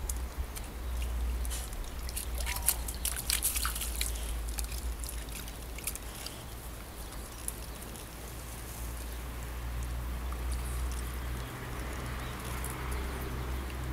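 A dog wading in a shallow garden pond, water sloshing and trickling around its legs, with a cluster of splashes a few seconds in.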